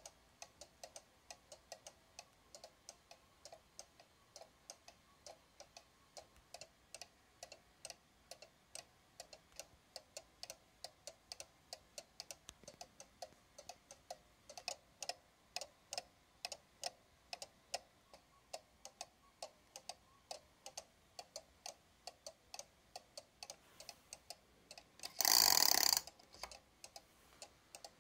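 Black Forest cuckoo clock's Regula pendulum movement ticking steadily, a few ticks a second. Near the end comes a loud rattling rush lasting about a second, the weight chain being pulled through the clock to wind it.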